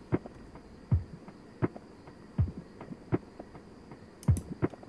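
Ambient background music with a soft low pulse, about one beat every three quarters of a second, over a faint steady high tone.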